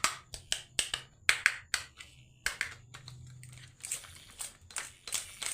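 Marbles clacking on a wooden marble run: a string of sharp, irregular clicks and knocks, some much louder than others.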